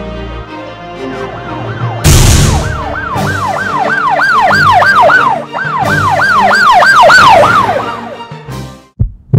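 Ambulance siren wailing in quick rising-and-falling sweeps over background music, with a loud crash noise about two seconds in. The siren fades out near the end and a low thump follows.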